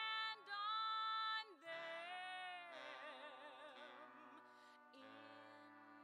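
Show tune: a woman's singing voice holds long notes over an accompaniment, loudest at first, then a sustained note with a wide vibrato.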